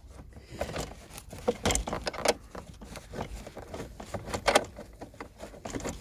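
Irregular metallic clicks, knocks and rattles from a Ford Explorer seat belt retractor and its steel bracket being worked loose and pulled out of the door pillar, with a heavier knock about two seconds in.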